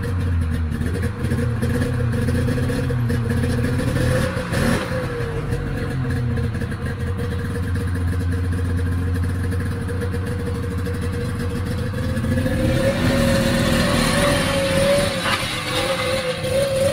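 1993 Polaris Indy XLT snowmobile's three-cylinder two-stroke engine idling steadily just after a semi-cold start, with a single knock about five seconds in. About twelve seconds in it revs up and gets louder as the sled pulls away in reverse.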